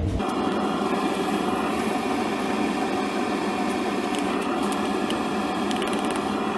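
Propane torch flame running with a steady hiss, heating the forged steel skull pendants to darken their finish, with a few light clicks near the end.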